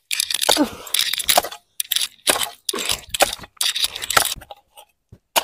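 Short-handled hoe chopping repeatedly into hard garden soil, about two strikes a second.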